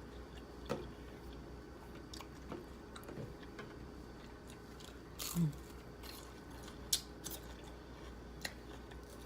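A person chewing crisp fried lumpia (thin-wrapped pork egg rolls) close to the microphone, soft chewing with scattered crisp clicks of the wrapper breaking, and a short low hum about five seconds in.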